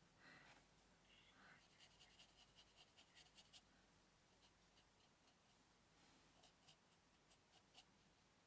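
Fine paintbrush working on textured watercolour paper: a run of faint short scratchy strokes and ticks, busiest in the first half and picking up again near the end.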